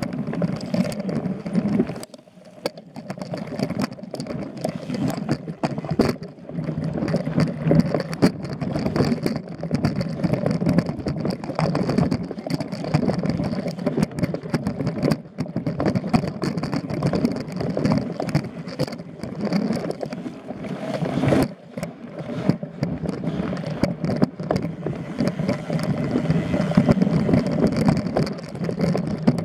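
Mountain bike riding down a dirt and rocky singletrack, heard from a camera mounted on the bike: tyres rolling over dirt and stones, with wind rushing on the microphone and frequent knocks and rattles as the bike hits bumps. The noise briefly drops about two seconds in and again around twenty-one seconds.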